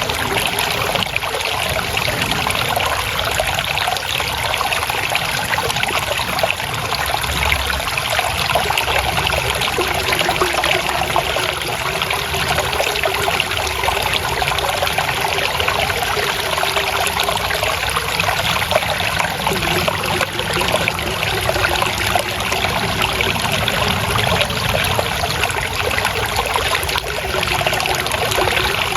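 Water trickling and flowing steadily, a continuous babbling of a small stream of running water.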